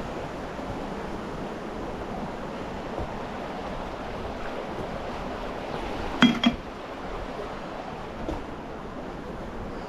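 Steady rush of creek water, with two sharp metallic clinks a fraction of a second apart a little over six seconds in, ringing briefly.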